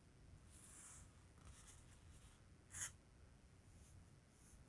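Faint dry scratching and rustling, with one sharper crackle just before three seconds in.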